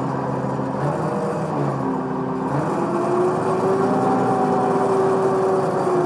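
Track loader engine running, heard from the operator's seat. Its pitch wavers in the first couple of seconds, then rises about two and a half seconds in and holds at the higher speed.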